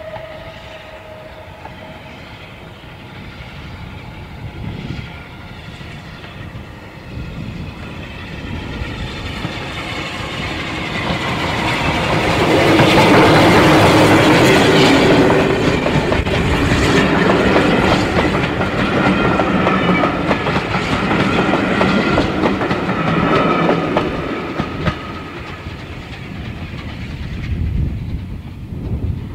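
An unrebuilt Bulleid Battle of Britain class Pacific steam locomotive working hard as it approaches, with the tail of its whistle at the very start. It grows steadily louder until it passes close by about halfway through, then its coaches roll past and away.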